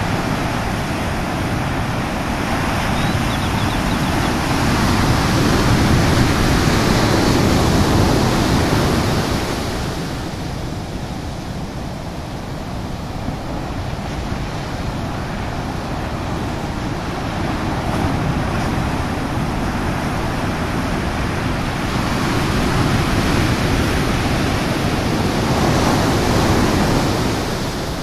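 Ocean surf breaking and washing in: a steady rushing that swells louder twice, once about a quarter of the way in and again near the end.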